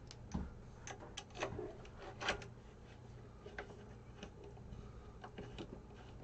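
Faint scattered clicks, taps and rubbing as screws are fitted loosely and metal parts are handled on a BIQU Legend 3D printer's frame during assembly.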